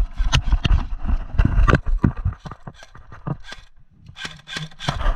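Footsteps at a run, an uneven series of thuds a few per second, with gear knocking against the body.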